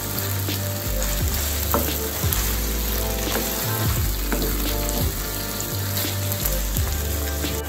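Saltfish and chocho sizzling in a nonstick frying pan while a wooden spatula stirs them, with short scrapes and taps against the pan.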